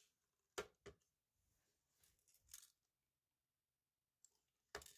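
Quiet handling noise from a small metal-cased Sony SS-TS500 speaker being turned over in the hand. Two sharp knocks come about half a second in and a soft rustle of its wires follows. Another few sharp knocks come near the end.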